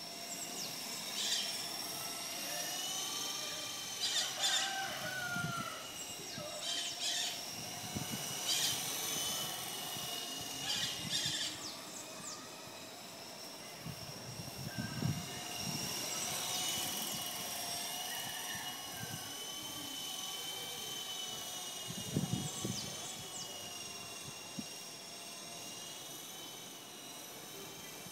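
FX052 fixed-pitch RC helicopter in flight, its electric motor and rotors whining steadily, the pitch rising and falling as the throttle changes. Short high chirps come and go over it, mostly in the first half.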